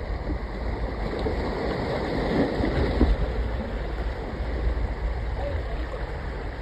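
Wind buffeting a phone's microphone over small sea waves washing against jetty rocks.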